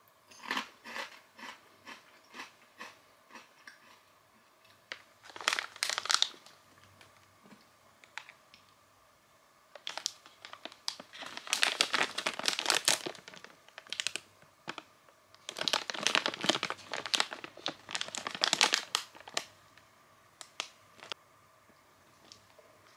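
Crinkly plastic snack bag being handled and torn open, in irregular bursts of crackling that are loudest and densest in the second half, after a short run of fading crackles at the start.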